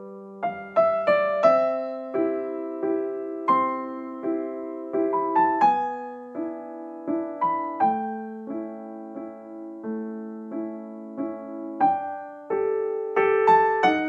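Background music: a solo piano playing a gentle melody over held chords, with a new note struck every half second or so.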